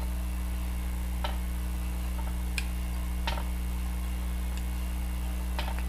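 Steady low electrical hum with a handful of faint, irregular light clicks from fly-tying work as floss is wrapped along the hook.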